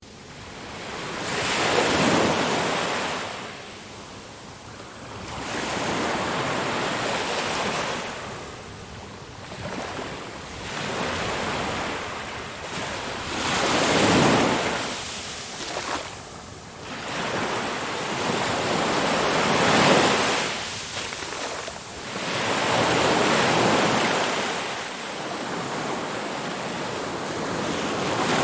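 Ocean surf: waves breaking and washing in, the noise swelling and fading every few seconds in a slow, uneven rhythm.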